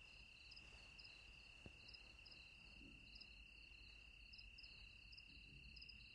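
Faint crickets at night: a steady high trill with short chirps repeating a few times a second above it.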